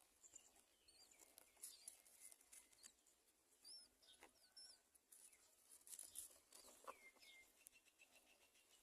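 Faint, short, high bird chirps at a great myna's nest, scattered through, with light scratchy rustling and small clicks.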